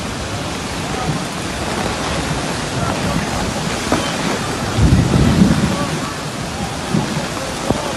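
Heavy rain falling steadily in a storm, with a brief low rumble of thunder about five seconds in.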